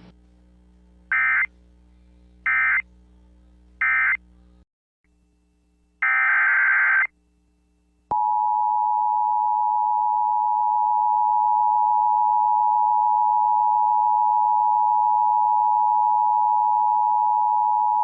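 Emergency Alert System tones: three short bursts of SAME digital data, the end-of-message code, about a second and a half apart. After a brief gap comes one longer data burst, typical of the header of the next alert. From about eight seconds the two-tone EAS attention signal sounds steadily, two close pitches held for about ten seconds.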